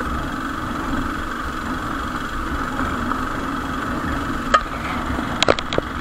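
Hero Xpulse 200 motorcycle's single-cylinder engine running steadily while the bike rolls slowly over a loose, stony dirt track, with tyre and suspension noise. There is a sharp knock past the middle and a quick run of knocks near the end.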